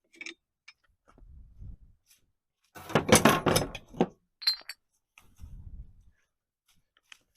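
Metal saw-filing jaws being taken out of a Hanson combination vise: scattered metallic clinks and clunks, with a louder burst of scraping and rattling metal about three seconds in.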